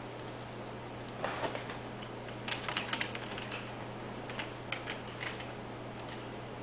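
Irregular light clicks and taps in small clusters, over a steady low hum.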